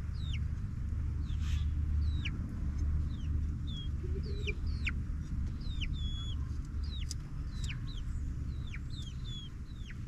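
Young chickens, pullets about eight weeks old, peeping: many short high calls that fall steeply in pitch, about two a second, over a steady low rumble.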